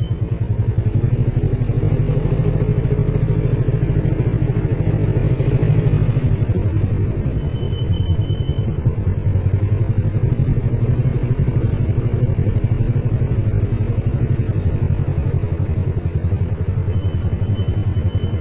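Motorcycle engine running steadily while being ridden, with a fast, even pulse from its firing.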